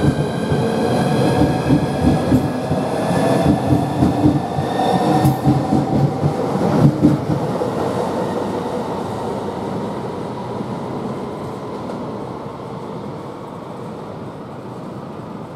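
Southeastern Class 395 high-speed electric train departing and accelerating. The wheels rumble and clatter over the rails and the traction motors whine, rising slightly in pitch, for about the first seven seconds. The sound then fades steadily as the train draws away.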